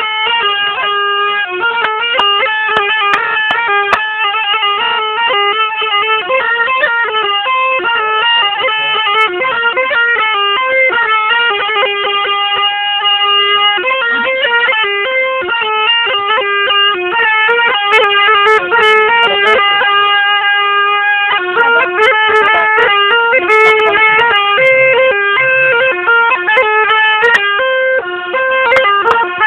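A zurna folk melody played without a break, moving in steps between held notes.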